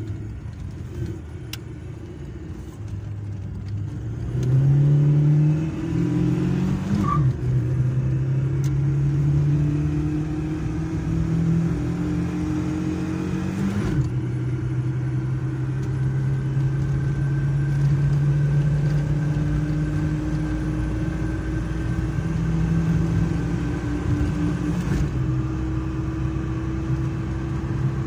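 Tofaş Doğan SLX's 1.6-litre fuel-injected engine, running on LPG, pulling hard, heard from inside the cabin. The engine note climbs, drops at gear changes about seven and fourteen seconds in, then climbs slowly in the higher gear.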